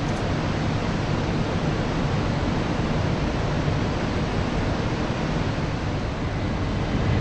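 Steady rushing rumble of a c2c Class 357 Electrostar electric multiple unit drawing slowly into the platform, with no distinct clicks or squeals.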